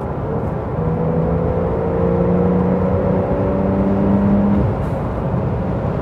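Porsche 911 Carrera's twin-turbo flat-six accelerating hard in gear, its note rising steadily over road noise, then dropping away abruptly about four and a half seconds in as the driver lifts off or shifts.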